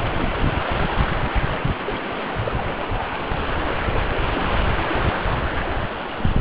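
Steady rush of whitewater river rapids around a small boat, with wind buffeting the microphone.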